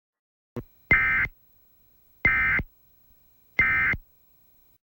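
Emergency Alert System end-of-message signal: three short bursts of SAME digital data tones, evenly spaced, marking the end of the alert. A brief click comes just before the first burst.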